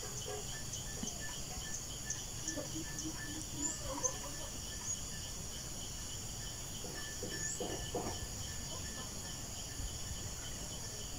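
Steady insect chorus, a continuous high-pitched trill, with frequent faint short chirps and a couple of faint calls about four and eight seconds in.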